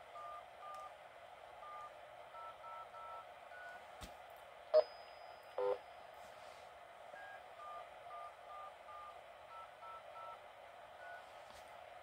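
Faint DTMF touch-tone sequences, the function code keyed from a handheld radio to an Arcom RC-210 repeater controller, sent twice over a low steady hiss. Two short louder blips come around five seconds in.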